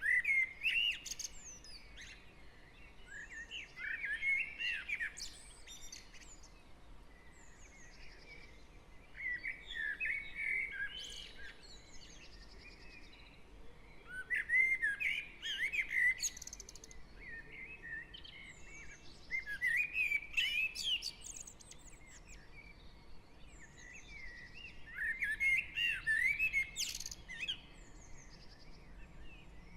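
Garden songbirds in a dawn chorus. One bird sings a warbling phrase of about two seconds roughly every five seconds, and fainter chirps fill the gaps between its phrases.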